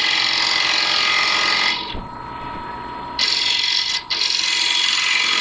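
Carbide-tipped parting tool cutting into spinning cherry on a wood lathe: a steady scraping hiss. It eases off for about a second near two seconds in and breaks briefly near four seconds.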